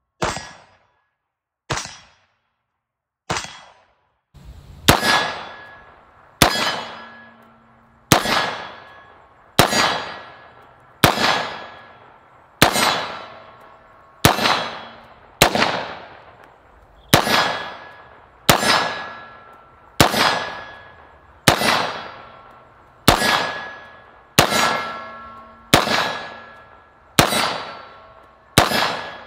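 Metallic clangs at a very even pace, about one every second and a half, each ringing out before the next. The first few are shorter and quieter; from about four seconds in they are louder and ring longer, with a low hum between them.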